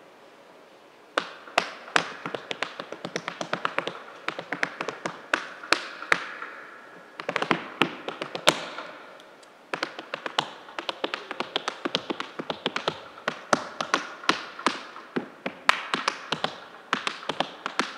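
Tap shoes striking a stage floor in an unaccompanied tap solo: quick, uneven rhythms of sharp taps with no music. The taps start about a second in and break off briefly twice midway.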